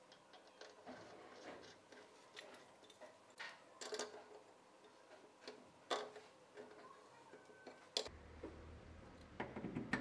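Faint, scattered metallic clicks and light scrapes as a brass faucet cartridge is screwed into a chrome tap body and tightened with an adjustable wrench, with a sharp click about eight seconds in.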